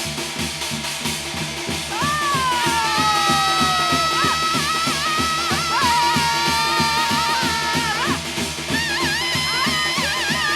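Korean shamanic ritual (gut) music: steady, busy drumming, joined about two seconds in by a melodic instrument playing held notes with long downward slides. The melody breaks briefly and resumes near the end.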